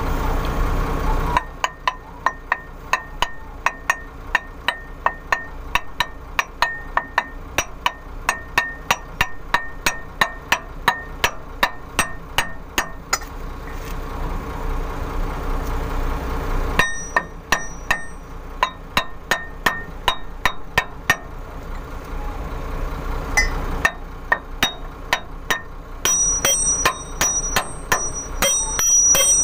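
Repeated hammer blows on the steel pinion flange of a truck differential, driving it onto the pinion shaft: quick, even strikes about three a second with a metallic ring. They stop for a few seconds about halfway through, then resume more unevenly, ringing higher near the end.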